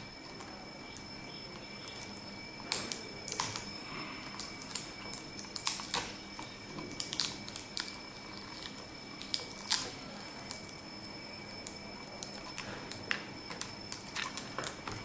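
Irregular light clicks and taps from hands handling an opened tablet's metal back shell, circuit board and screen frame during disassembly, over a steady hiss and a faint high whine.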